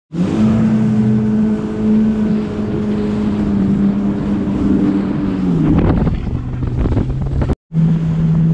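Yamaha FX HO WaveRunner jet ski engine running at speed with a steady whine, over wind on the microphone and rushing water. A little past halfway the engine note falls and then holds at a lower steady pitch.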